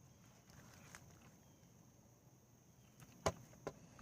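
Faint steady high insect drone, with two sharp knocks about three seconds in, a third of a second apart.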